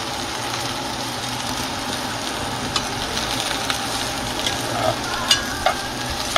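Sliced okra sizzling steadily as it fries in a nonstick pan, starting to brown. From about three seconds in, a slotted spoon scrapes and clicks against the pan a few times as it is stirred.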